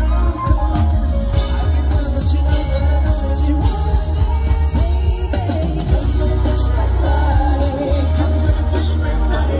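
Live pop song: a male singer sings into a microphone over a band with heavy bass and drum kit, played loud through a concert sound system.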